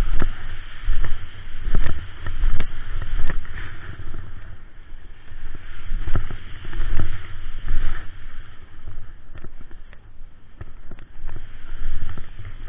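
Snowboard scraping and sliding over packed snow, with wind buffeting the action-camera microphone in irregular loud gusts and occasional sharp clicks.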